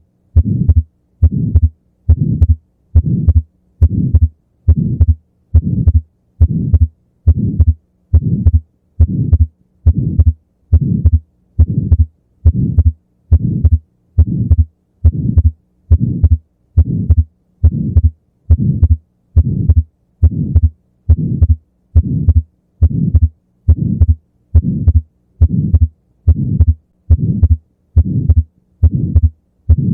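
Heart sounds of an atrial septal defect heard through a stethoscope: a systolic ejection flow murmur and a widely, fixedly split second heart sound, repeating in a steady, regular rhythm.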